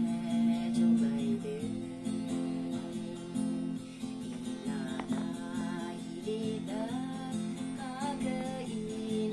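A woman singing a song in the Tikhir dialect while strumming chords on an acoustic guitar.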